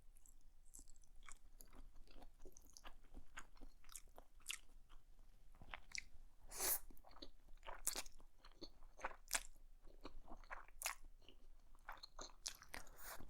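A person chewing food close to the microphone: soft wet clicks and smacks of the mouth, scattered and irregular, with one louder smack about seven seconds in.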